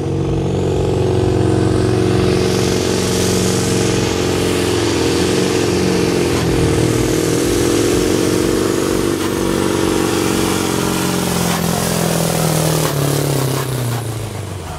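Pulling truck's diesel engine, a yellow Scania, running hard at high revs under full load while it drags the brake sled. Its revs drop and the sound falls away near the end.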